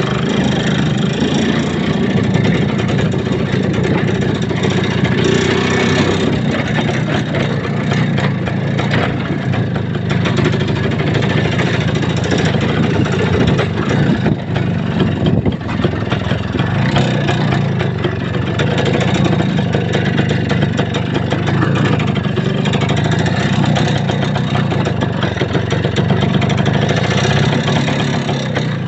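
A motor vehicle driving: its engine runs steadily under a constant rough rumble, with a brief dip about halfway through.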